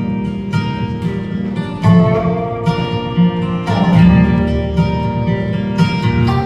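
Live bluegrass band playing the instrumental opening of a gospel song, with no singing yet. Acoustic guitar is strumming and plucked strings carry the melody over an upright bass line, with mandolin, fiddle, dobro and banjo in the band.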